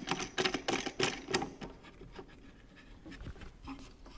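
A universal fence clamp being clamped down on a sacrificial table-saw fence: a quick run of sharp clicks and rattles in the first second and a half, then quieter handling scrapes and a few faint clicks.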